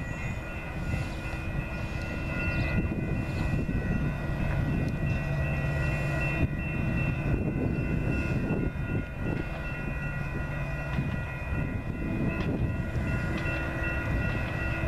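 A diesel train running out of sight: a steady low rumble with several steady tones held throughout.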